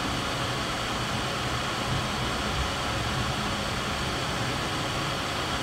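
Steady background noise, an even hiss with a low hum beneath it, without change.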